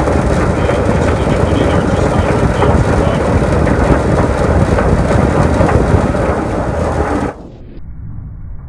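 Motor-driven honey extractor spinning loaded honey frames: a loud, steady rumble of the drum with many small rattling clicks. The sound stops abruptly about seven seconds in, leaving a much quieter background.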